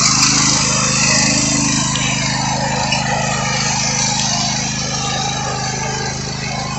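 Riding lawn mower's small engine running steadily at an even speed, with no revving or change in pitch.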